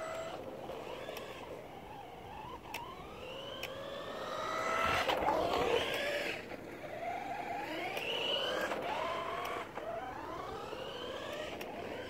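RC car motors whining, rising in pitch again and again as the cars accelerate, loudest about five seconds in, with a few sharp ticks.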